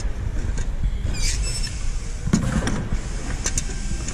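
Steady low workshop rumble, with a few light metallic clinks and knocks as hand tools and the riveted sheet-metal part are handled on a wooden bench. One clink about a second in rings briefly.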